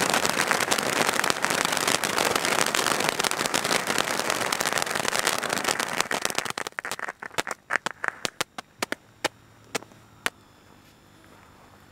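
Firework ground fountains (volcanoes) burning with a dense, loud hiss and crackle of sparks. About seven seconds in the spray dies away and breaks up into scattered sharp crackles and pops as the last fountain burns out, leaving near quiet.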